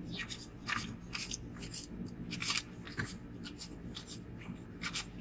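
Paper banknotes being counted by hand: a run of crisp, irregular flicks and rustles as the bills are leafed through one by one.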